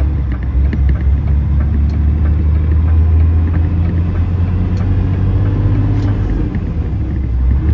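Diesel engine of a DAF truck with a manual 18-speed gearbox, heard from inside the cab, running steadily under way with a low drone while pulling a loaded truck and trailer.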